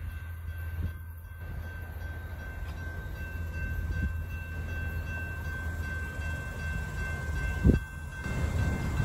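Railroad grade crossing after a commuter train has gone by: the train fades into the distance as the crossing gate arms lift, with a low steady rumble and a thin steady tone. A single sharp thump comes near the end.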